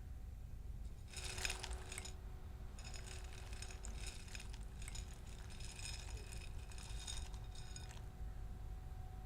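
Small metallic clinking and rattling with a bright ringing edge, in two bursts: a short one about a second in, then a longer one lasting about five seconds. A faint steady low hum runs underneath.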